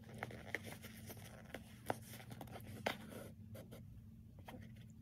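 Faint rustling and scratching of a padded nylon jacket being handled while it is hand-sewn, as the needle goes through and the thread is drawn out, with scattered light ticks; two sharper ticks come near the middle.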